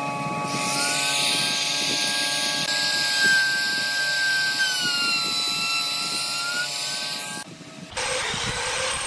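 Compact trim router running at full speed, cutting a recess in pine: a steady motor whine whose pitch dips and rises as the bit takes the wood. Near the end it breaks off briefly, and a rougher, noisier cutting sound follows.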